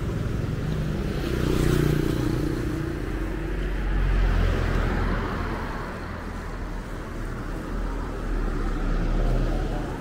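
Road traffic: motor vehicles going past one after another, with a steady engine rumble that swells about three times as they pass.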